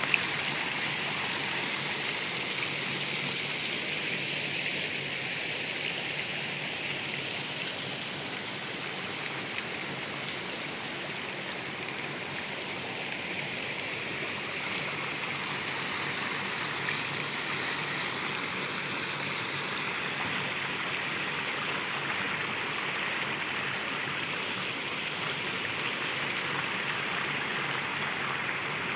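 Garden fountains running: many small water jets splashing into shallow pools, a steady rush of water.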